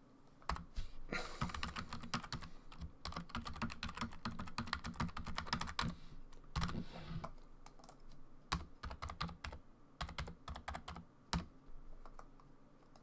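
Typing on a computer keyboard: fast runs of keystrokes for the first several seconds, then shorter, spaced groups of keystrokes that stop shortly before the end.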